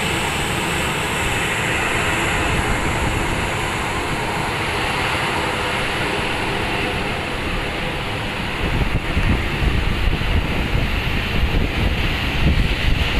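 Steady hiss of heavy rain mixed with the jet engines of a Boeing 737-800 rolling along a wet runway. About two-thirds of the way in, gusting wind starts buffeting the microphone with an uneven low rumble.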